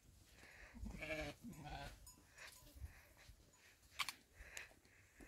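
Livestock bleating: two wavering bleats in quick succession about a second in, then a sharp click about four seconds in.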